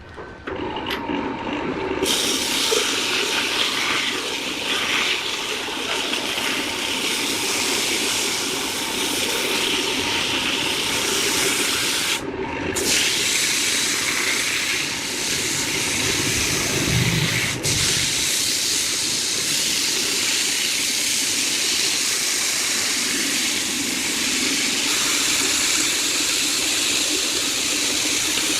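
Wood lathe spinning a workpiece while a tool works the wood, a steady hissing noise with brief breaks right at the start and about twelve seconds in.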